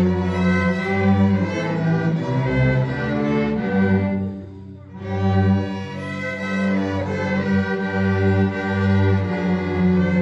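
A cello ensemble playing, long bowed notes in the low register held one after another. The music nearly stops for a moment about four seconds in, then the cellos come back in together.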